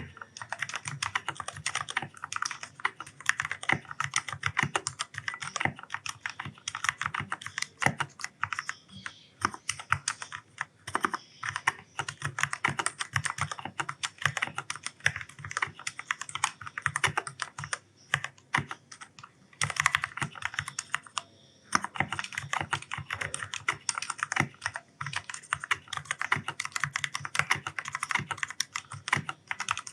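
Fast, continuous typing on an Ajazz K610T mechanical keyboard with linear black switches: a dense stream of keystroke clacks, thinning briefly a few times.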